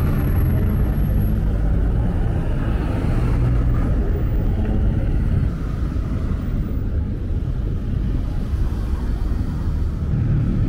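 City street traffic: car and motorbike engines running close by in a steady low rumble, easing off a little about halfway through.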